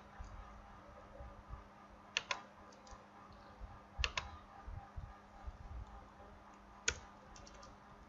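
Computer keyboard keystrokes and mouse clicks: a few sharp clicks, several in quick pairs, about two seconds apart, over a faint steady hum.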